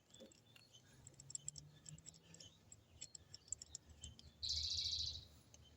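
Faint scattered clicks and taps as a skid-plate screw is tightened, and about four seconds in a short, high bird trill lasting under a second.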